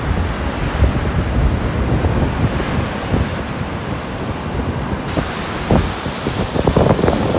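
Rough Lake Superior surf breaking and washing over a rocky shoreline, with strong wind buffeting the microphone. A louder wash of breaking surf builds near the end.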